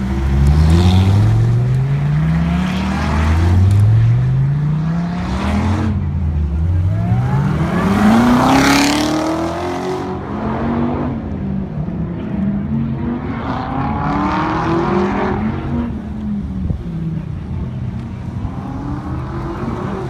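A high-performance sports car engine accelerating hard, its pitch climbing again and again in short pulls. It is loudest as the car passes about eight seconds in, then keeps revving up further off.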